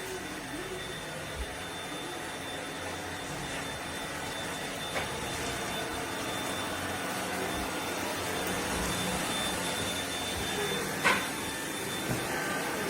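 Eureka RapidClean Pro NEC280TL cordless stick vacuum running steadily, a constant rush of airflow with a thin high whine from the motor. A short sharp knock sounds near the end.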